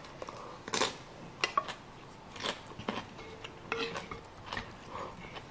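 Close-up eating sounds: a mouthful picked up with chopsticks being chewed, heard as irregular soft smacks and clicks, with now and then a click of the chopsticks.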